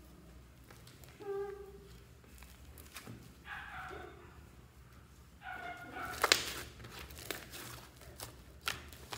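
Fluffy shaving-foam slime being squished and stretched by hand: soft squelching with crackles and popping clicks, the sharpest about six seconds in. Three short pitched squeaks come about a second, three and a half and five and a half seconds in.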